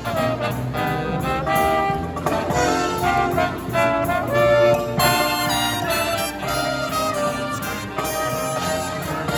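Live brass band music: trumpets and trombones playing a melody in held and moving notes, with band accompaniment.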